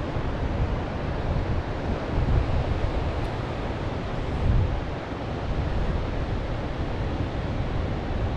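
Ocean surf washing onto a beach, with wind buffeting the microphone in low rumbles that swell a couple of times.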